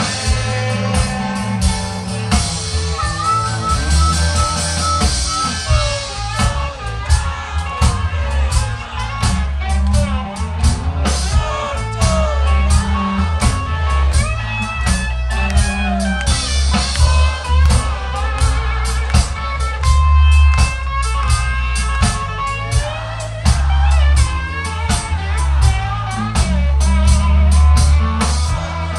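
Live rock band playing an instrumental passage on electric guitars and drum kit, with steady, dense drum beats under the guitar lines.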